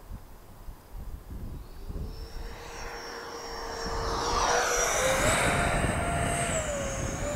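Twin 64 mm electric ducted fans of a FlyFans MiG-25 RC jet whining, growing louder from about two seconds in as the jet comes closer; the whine steps up in pitch about five seconds in and eases down slightly near the end. Wind rumbles on the microphone underneath.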